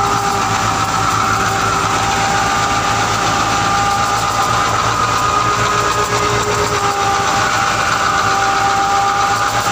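Fiat 640 diesel tractor engine running steadily under load as it drives a thresher through its PTO shaft: a continuous drone with a few held whining tones above it.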